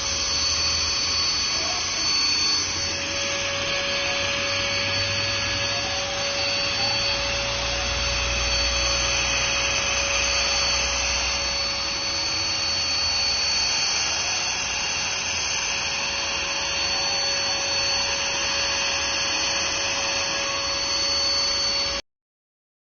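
Cordless handheld vacuum cleaner running steadily, a high motor whine over rushing airflow, which cuts off suddenly near the end.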